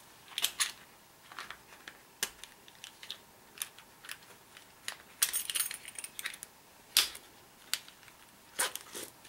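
Scattered light metallic clicks and jingles of a canvas rifle sling's metal buckle and clip knocking together and against the rifle as the strap is threaded through, with a denser run of clinks about five seconds in.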